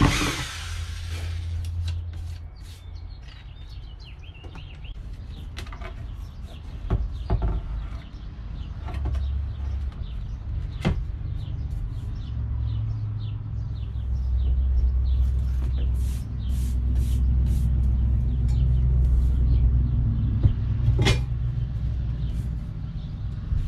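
A cordless drill briefly driving a screw through a metal table-leg flange, then scattered knocks and clicks as a metal table leg is handled and set into its floor mount, all over a steady low rumble.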